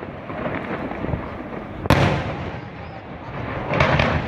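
Aerial fireworks exploding: a sharp bang about two seconds in, trailing off in a rolling echo, and a second, longer burst near the end.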